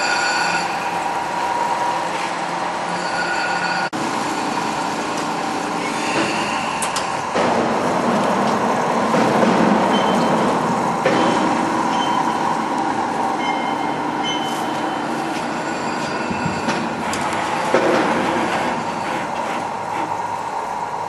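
Small CNC pipe threading lathe running under load, with a steady mechanical din and brief high-pitched squeals now and then.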